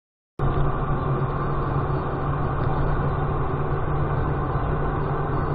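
A vehicle engine running steadily with a low, even hum, starting abruptly about half a second in.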